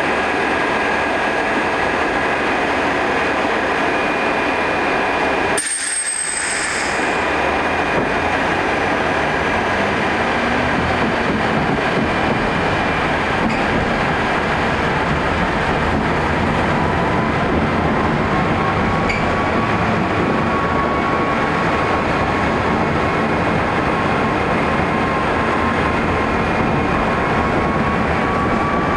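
Tram running along a city street, heard from inside: a steady rumble of wheels on rails. The low rumble drops away briefly about six seconds in. In the second half the motor whine slowly rises in pitch.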